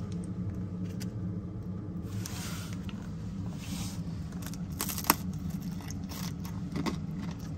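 Applesauce squeezed from a small foil pouch onto a cracker, followed by a few crunchy bites into the dry MRE cracker in the second half, over a steady low hum.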